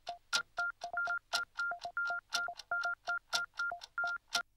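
Jingle of a TV audience-rating card: a quick run of short electronic tones hopping between two notes an octave apart, about four to five a second, each starting with a click. The run stops abruptly near the end.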